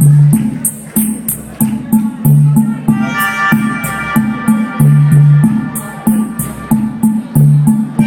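Live pop-rock band playing an instrumental passage with no singing: an even, fast ticking beat on hi-hat or shaker over repeating bass notes, with a held chord coming in about three seconds in.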